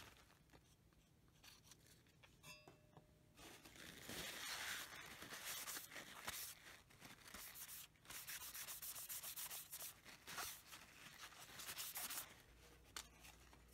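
Faint rubbing of a paper towel over a wooden knife handle, a scratchy wiping in two spells with a short break about eight seconds in.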